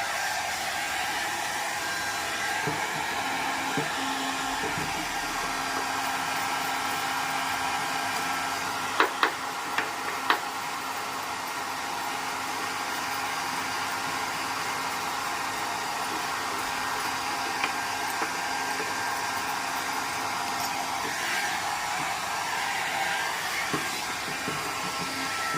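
Hair dryer blowing steadily with a motor hum and whine. A few sharp clicks close together about a third of the way in.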